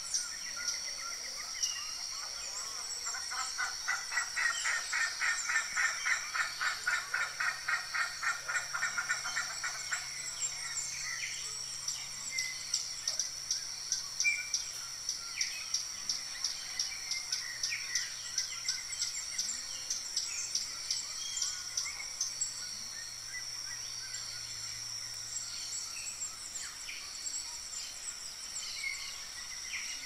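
Steady high-pitched insect chirring with scattered short bird chirps. A loud, fast-pulsing trill joins in a few seconds in and stops about ten seconds in.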